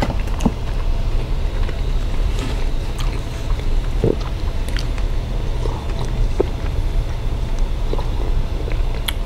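A steady low rumble, with scattered soft clicks and mouth sounds of eating: chewing a sausage and sipping from a mug.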